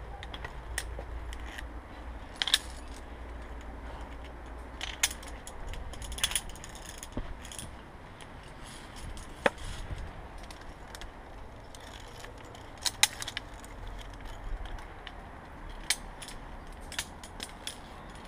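Metal carabiners of via ferrata lanyards clinking and jangling against the steel safety cable and iron rungs, in sharp clicks scattered every second or few, over a steady low rumble.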